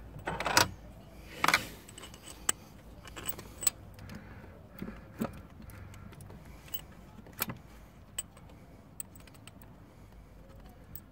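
Metal clinks and knocks of a bolt and hand tools as the first mounting bolt of a car's air-conditioning compressor is started. Two louder knocks come in the first two seconds, then scattered light clicks that thin out after about eight seconds.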